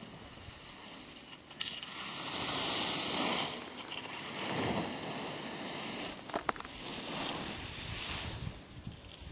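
Skis carving across groomed snow: a series of hissing swishes that swell and fade with each turn, the loudest about three seconds in. Two sharp clicks, one early and one past the middle.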